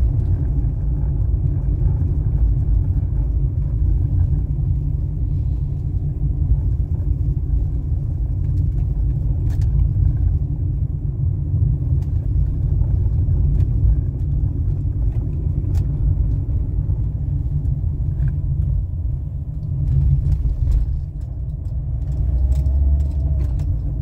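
A car being driven, its engine and tyres making a steady low rumble, with a couple of faint clicks.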